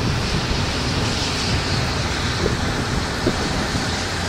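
Steady rushing wind noise buffeting the camcorder's microphone, with a low rumble.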